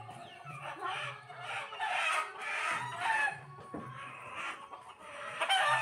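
Domestic chickens clucking, with a rooster crowing; the loudest call comes near the end.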